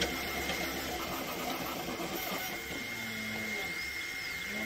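Creality Ender-3 V3 Plus 3D printer running a fast print. Its motors make steady whining tones that jump to new pitches every second or so as the moves change, and a high whine rises and falls once near the end.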